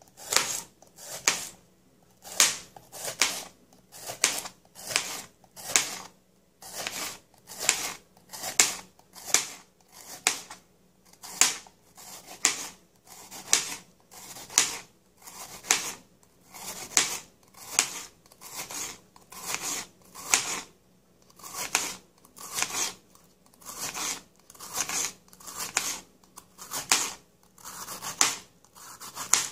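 Kitchen knife slicing raw bitter melon very thin on a plastic cutting board: a steady rhythm of crisp crunching cuts, about three every two seconds, each ending in a light tap of the blade on the board.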